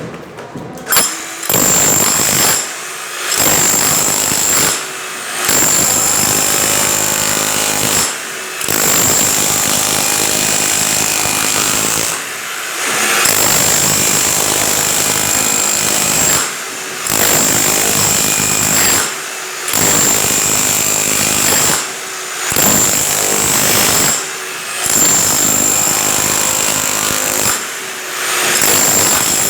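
A loud power tool run in repeated bursts of a few seconds each, with short pauses between, about ten times, with a steady high whine on top of the noise.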